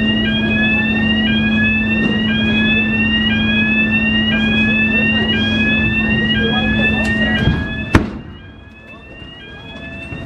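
Ferry warning signal: a rising electronic tone repeated about once a second, over the steady hum of the ferry's engine. About eight seconds in the hum stops, there is a single loud clunk, and the warning tone carries on more faintly.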